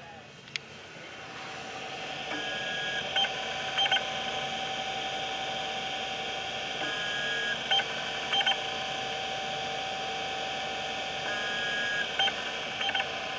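IBM PS/2 Model 30 hard drive running a diagnostic seek test: a steady whine, louder over the first two seconds, with a short high tone and a few sharp head clicks repeating about every four and a half seconds, as the test hits an error and resets on a drive in poor shape.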